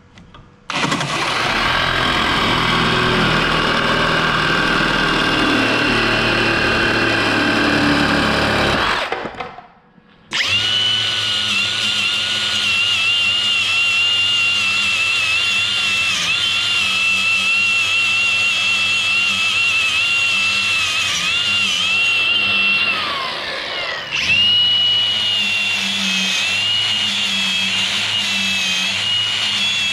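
A reciprocating saw cuts through steel for about eight seconds and then stops. After a short pause an angle grinder spins up and grinds the edge of a steel mounting plate with a steady high whine. Its pitch sags briefly near the end, then recovers.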